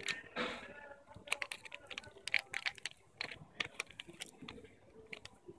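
A child crunching gusanitos, puffed corn snacks, and crinkling the plastic snack bag: an irregular run of crisp crackles and clicks, thickest in the middle.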